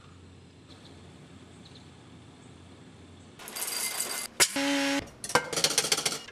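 Low room tone, then about three and a half seconds in, whole coffee beans poured from a paper bag rattle into a ceramic mug. A sharp click and a brief steady whir follow, then rapid rattling and clinking as the grinder's stainless steel container and lid are handled.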